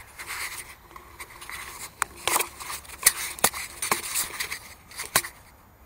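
Handling noise from a camera being taken off its mount: rustling with about six sharp clicks and knocks, which stops near the end.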